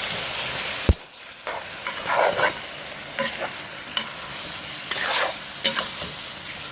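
Chicken pieces sizzling in hot oil and curry in a cast-iron Dutch pot while a spoon stirs and scrapes them around in separate strokes. There is a sharp knock about a second in, after which the sizzle is quieter.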